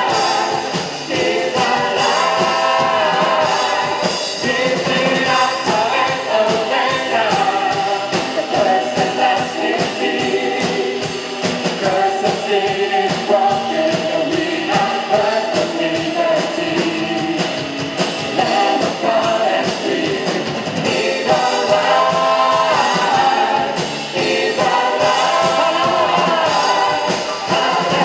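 Praise band playing an upbeat worship song with a steady drum beat, with a group of voices singing along.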